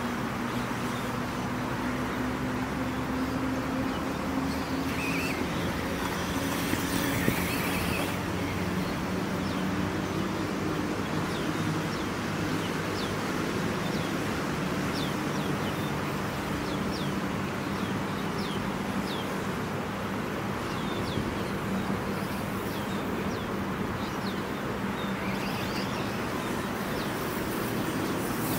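Steady outdoor noise with a low, slowly wavering drone throughout. From about eight seconds in, there is a long run of short, high, falling chirps.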